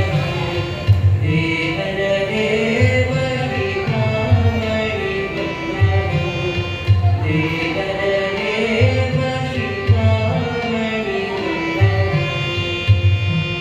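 Male voices singing an Indian devotional song, accompanied by an electronic keyboard with long held tones and a steady repeating tabla beat.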